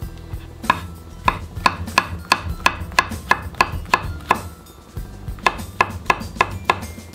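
Chef's knife slicing mushrooms on a bamboo cutting board: the blade knocks down on the board in an even rhythm of about three cuts a second, with a short pause about two-thirds of the way through.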